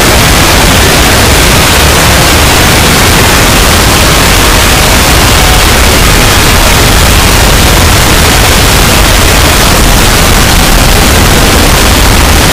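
A dense, distorted wall of noise from dozens of video soundtracks layered on top of one another, clipped near full level, with no single sound standing out.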